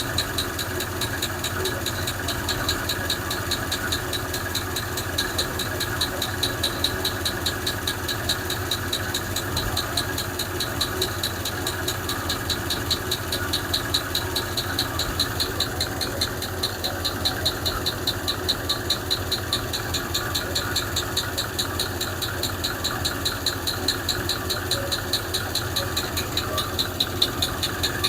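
Chrysler Hemi V8 idling, with a fast, even lifter tick running through the engine note. One lifter on one side is still clattering after the VVT solenoid was swapped for an elimination plug, which the owner fears is a damaged lifter.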